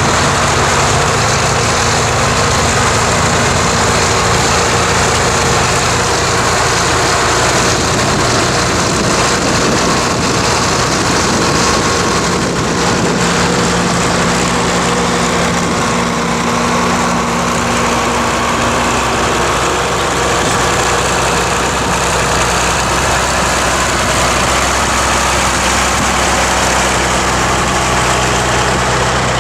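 Diesel tractor engine working steadily under load while ploughing, its note shifting a little now and then, with heavy wind noise on the microphone.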